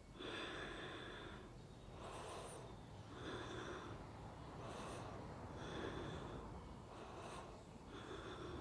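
A woman breathing slowly and audibly through the nose, faint, with an inhale or exhale about every second or so, while she holds a yoga pose.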